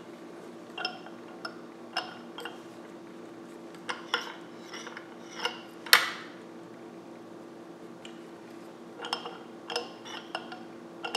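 Scattered metallic clicks and clinks as hands turn the Turin DF83 flat-burr grinder's adjustment dial and burr carrier toward the zero point, with one sharper clink about six seconds in. A faint steady hum runs underneath.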